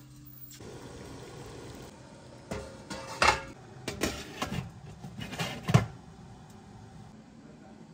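Kitchen cookware knocking and clinking: a handful of sharp knocks in the middle of the stretch, the loudest two a few seconds apart, over a steady hiss.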